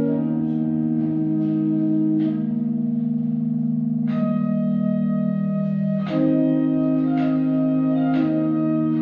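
Church pipe organ playing sustained chords, the harmony shifting about every two seconds.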